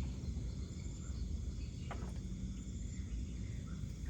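Night insects chirping steadily over a low, even rumble, with one sharp click about two seconds in.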